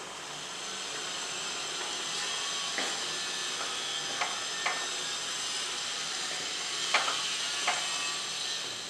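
A pot of thick chana masala curry simmering with a steady hiss, while a wooden spatula stirs it and knocks sharply against the pot five or six times from about three seconds in.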